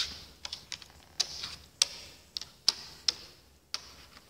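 Draughts pieces set down and slid on a wooden board as moves are played out by hand: a string of sharp, irregular clicks, the loudest right at the start.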